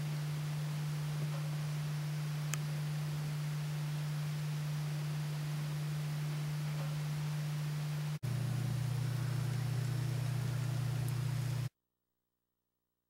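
A steady low hum, dropping to a slightly lower pitch at a break about eight seconds in, then cutting off suddenly to silence near the end.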